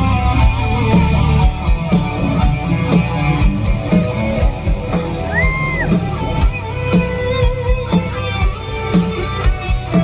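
Live rock band playing through a festival PA, heard from the crowd: drums, bass, keyboards and electric guitar. A held high note bends up and back down about halfway through.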